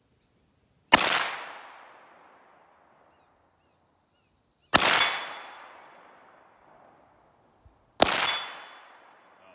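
Three slow, deliberate shots from an STI 2011 DVC Open race pistol with a compensator, loaded with 9mm major, each echoing away over a couple of seconds. A high metallic ring lingers after the second and third shots, a steel gong being hit at 50 yards.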